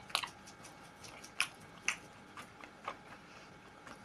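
A person chewing a mouthful of food close to the microphone, with soft wet mouth clicks and smacks every half second or so.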